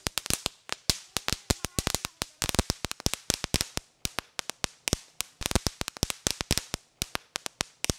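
Magic whip spinning-wheel fireworks crackling: sharp cracks in quick, irregular runs, several to a dozen a second, with short lulls between the runs.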